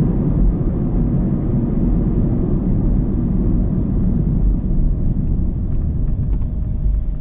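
Steady low rumble of tyre and engine noise heard inside a moving car's cabin, with no change in pace.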